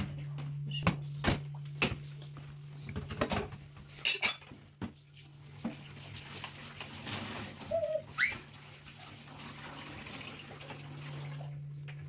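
Plastic bowls knocking and clattering against a stainless steel sink and counter, then a tap running as potatoes are rinsed by hand in a plastic bowl. A steady low hum runs underneath.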